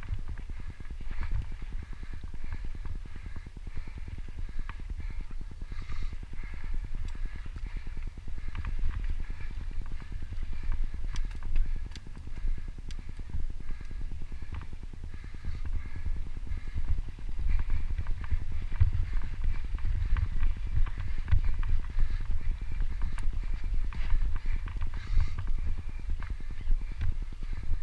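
Mountain bike riding fast down a dirt trail: wind rumbling on the camera microphone, with the tyres running over dirt and the bike rattling and knocking over bumps.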